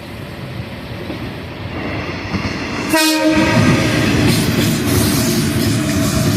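Electric train approaching and passing close by, its rumble building; about three seconds in it sounds one short horn blast of about half a second, then the wheels rumble and clatter loudly over the rails.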